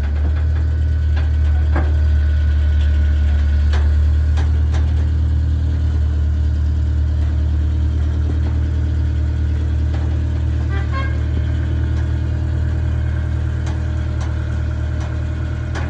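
Toyota Corolla TE72 wagon's engine idling steadily as the car backs slowly down off a trailer, with a few light clicks over it.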